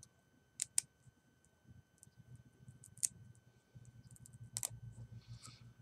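Small knife blade shaving the tip of a thin wooden stick: light, scattered clicks as the blade catches and shavings come off, a few of them sharper, with a soft scrape near the end.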